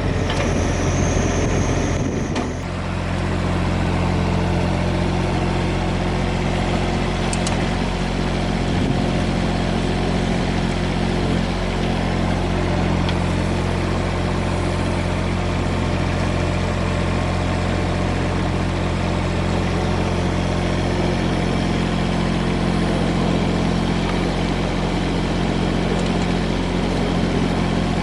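Diesel engine of a Komatsu PC15R-8 mini excavator running steadily. In the first two seconds a busier sound with a high whine rides over it, then stops about two and a half seconds in, leaving the engine running evenly.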